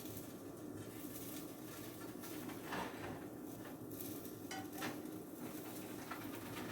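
A kitchen utensil clinking and scraping against a frying pan as pancakes cook, in two short groups around 3 seconds in and around 4.5 to 5 seconds in, over a faint steady background noise.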